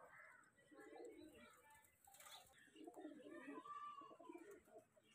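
Faint cooing of domestic pigeons, in two low, pulsing bouts.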